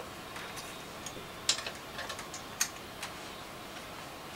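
A few light, sharp metallic clicks about a second apart as the bolt on a Pit Bull rear stand's spool-support top is snugged up by hand.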